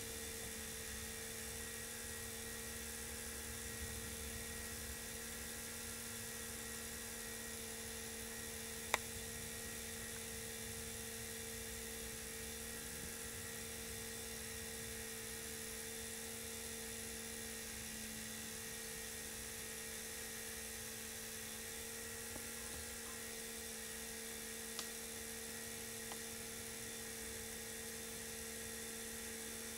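Steady electric hum with a faint two-note whine over a light hiss, broken by one sharp click about nine seconds in and a couple of faint ticks later.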